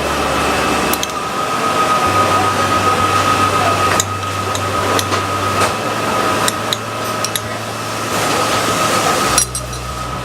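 Steady rushing hum of kitchen ventilation with a low drone and a faint high steady tone, broken by a few light clinks and taps of utensils against plates as a dish is garnished.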